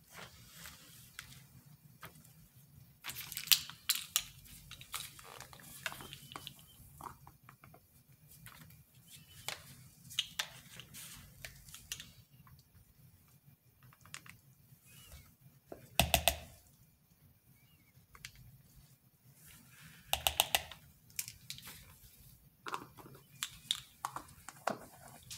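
Scattered clicks, taps and knocks of plastic containers and a plastic measuring spoon being handled while colourant powder is scooped from a jar into a plastic cup, with one louder knock about two-thirds of the way through.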